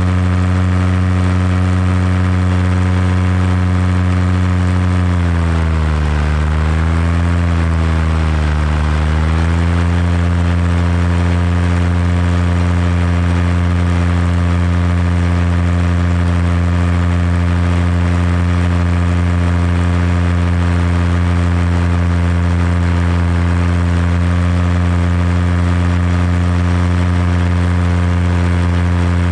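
Paramotor engine and propeller running steadily in flight. About five seconds in, the pitch drops, rises briefly, drops again and climbs back up near ten seconds as the throttle is eased off and reopened, then it holds steady.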